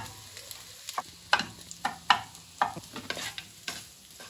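Wooden spatula scraping and knocking against a wok as rice is stirred and its lumps broken up, in irregular strokes about two a second, over a faint sizzle.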